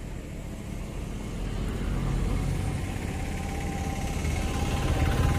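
An engine running steadily with a low rumble, growing gradually louder.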